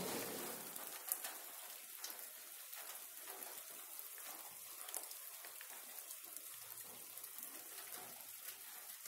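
Faint, steady patter of light rain on the roof, with a few sharper drops striking now and then.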